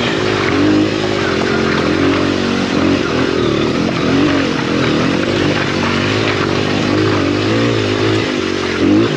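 Honda XR100R dirt bike's single-cylinder four-stroke engine being ridden down a rocky trail, on and off the throttle, its pitch rising and falling about once a second.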